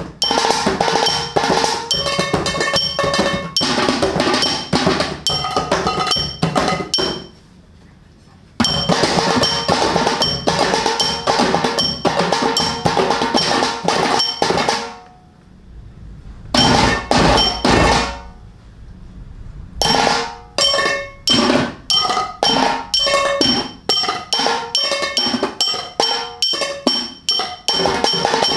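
Kitchen-utensil percussion: hands drumming on metal tins and pans, with a plastic water bottle and a glass bottle played along, in a fast steady beat. The beat stops for about a second some seven seconds in, then thins out from about fifteen seconds to a few heavy low hits before coming back in full near twenty seconds.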